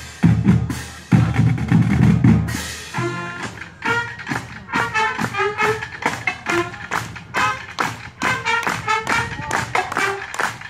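Marching band playing: heavy bass-drum hits for the first couple of seconds, then horns come in over a steady drum beat.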